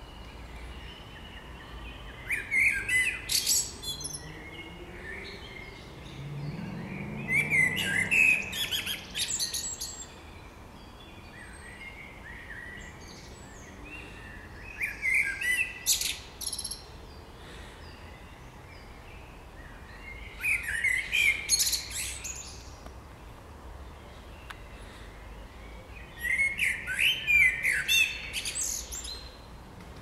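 Male Eurasian blackbird singing: five fluty, warbling song phrases spaced several seconds apart, each ending in a high, squeaky twitter.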